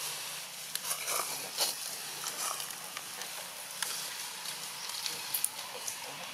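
Steady background hiss with scattered small clicks and crackles.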